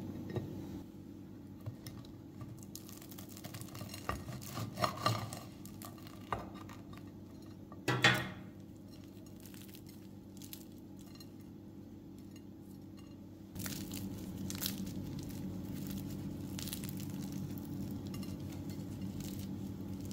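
Crisp, flaky baked puff pastries knocking and clinking against a ceramic plate as they are handled, with a sharp knock about eight seconds in. From about halfway on, the pastry crackles as one is torn open, over a steady low hum.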